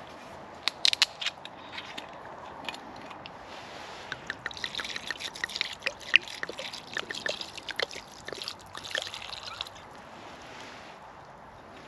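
Red wine poured from a glass bottle into a stew in a cast-iron Dutch oven, splashing and gurgling for several seconds from about four seconds in. A few sharp clicks come about a second in.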